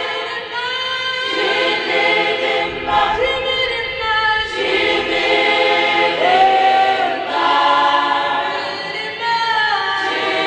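A choir singing, several voices holding long notes and gliding from one to the next.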